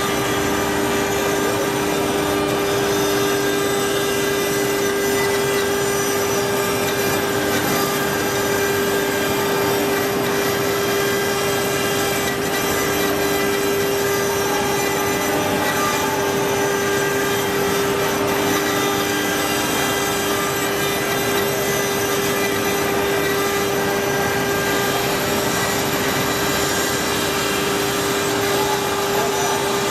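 A stone-engraving CNC router's spindle running as it carves marble: a steady whine over a continuous grinding hiss, unchanging throughout.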